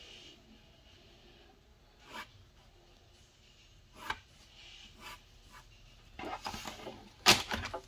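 Quiet rubbing and scratching of hand-held art materials at work, with a few light clicks and a sharper tap near the end.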